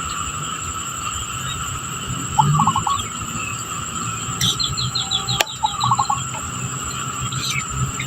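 Outdoor insect chorus droning steadily, with a short four- or five-note call repeating about every three and a half seconds. About four and a half seconds in, a bird gives a quick run of high chirps, followed by a single sharp click.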